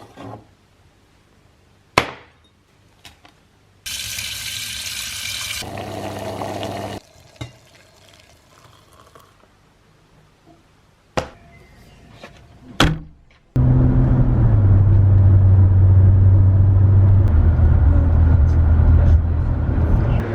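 A few sharp clicks and knocks and a hiss lasting about three seconds. About two-thirds of the way in, loud background music with a heavy bass line starts abruptly.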